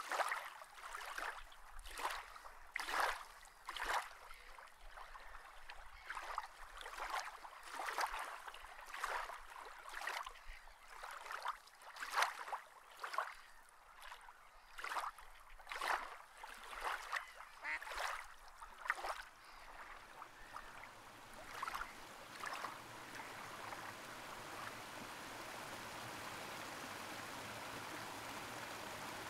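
Water splashing in a repeated rhythm, roughly once a second. About twenty seconds in this gives way to a steady rushing hiss of water.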